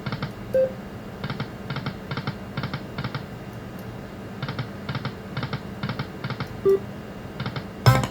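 Lightning Link slot machine spinning its reels: even ticking about two or three times a second in runs with short pauses, a couple of brief beeps, and a sharp loud click near the end.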